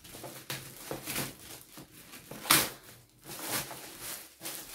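Clear plastic wrapping crinkling and rustling as it is pulled off a cardboard box, in irregular crackly bursts with the loudest crackle about halfway through.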